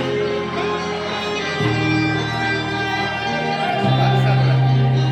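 Guitar-led entrance music playing over a PA, with bass notes changing every couple of seconds.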